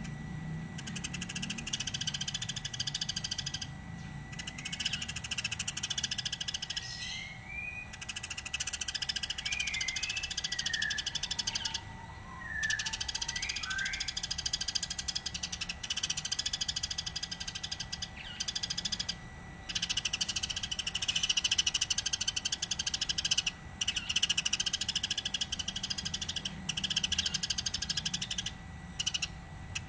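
Eurasian tree sparrow chirping in a rapid, continuous chatter, broken by a few short pauses. A few gliding whistled notes come through between about 7 and 14 seconds in.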